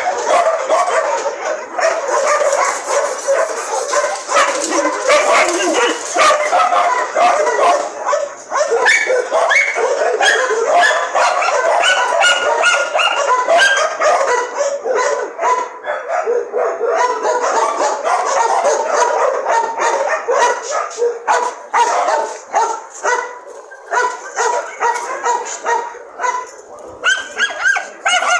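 Several dogs barking over one another in a continuous din of short, overlapping barks.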